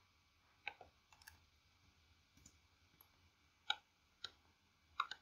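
Faint, scattered clicks of a computer mouse, about six over five seconds, against near-silent room tone.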